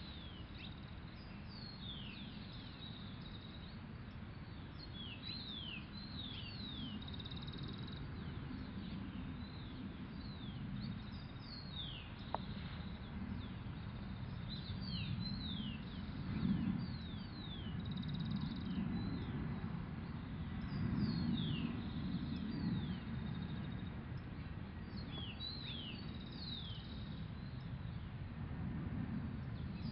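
Small birds chirping over and over, each call a quick falling note, over a low steady rumble that swells louder a few times partway through. One sharp click about twelve seconds in.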